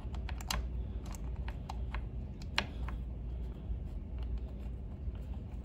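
Scattered light clicks and taps of captured screws being turned in by hand on the Doble TR3190 transducer's metal housing, the sharpest about two and a half seconds in, over a low steady hum.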